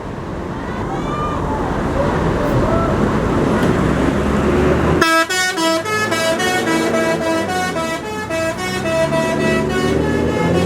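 Bus engine and traffic noise, then about halfway through a multi-tone 'telolet' bus horn starts up, playing a quick tune of short notes that lasts until near the end.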